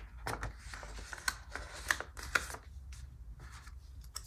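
Paper sticker being handled off a sticker sheet: light paper rustles with a few short, sharp ticks.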